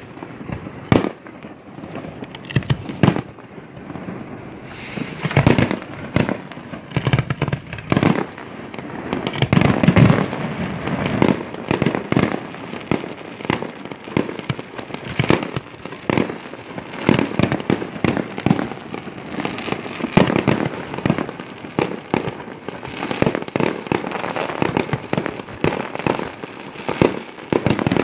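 Fireworks display: aerial shells launching from the ground and bursting overhead, a loud, irregular string of sharp bangs in quick succession, some overlapping.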